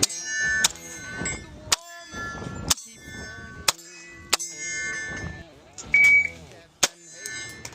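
Shell-ejecting toy 1911 pistol firing, about seven sharp snaps at roughly one-second gaps as it ejects its shells, over background music.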